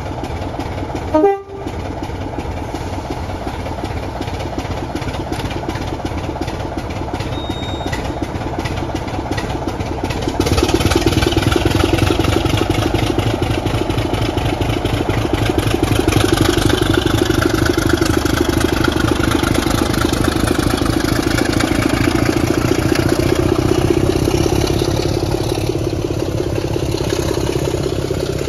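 Class 24 diesel locomotive D5054's Sulzer six-cylinder engine running as it passes at slow speed, a steady deep drone that grows louder about ten seconds in and eases off near the end. A brief loud blip sounds about a second in.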